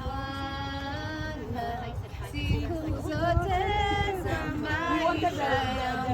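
A woman singing a hymn unaccompanied, holding a long steady note at the start and then moving through gliding phrases.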